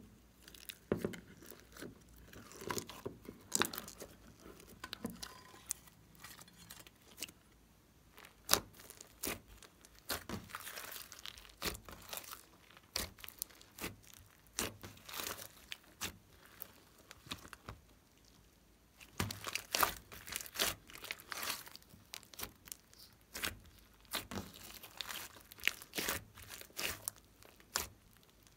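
Hands squeezing and kneading a large blob of glossy slime mixed with foam beads, giving irregular sticky pops, crackles and squishes, with a couple of quieter pauses.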